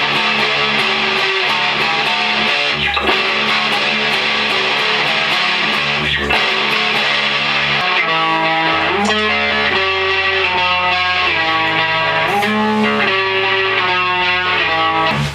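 Rock music led by electric guitar, with a steady beat.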